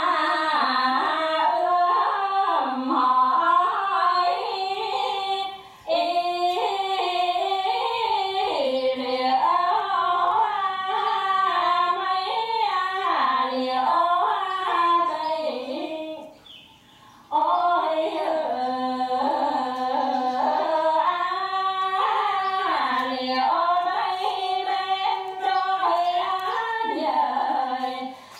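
Two women singing a Bắc Ninh quan họ folk song in duet, unaccompanied, in long melismatic phrases with breath pauses about 6 and 17 seconds in.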